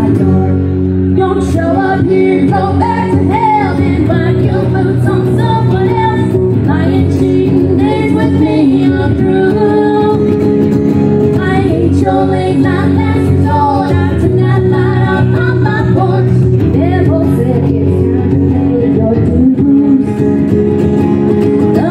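Live acoustic duo performing a song: two acoustic guitars playing chords, with a woman singing into a microphone, amplified through the stage PA speakers.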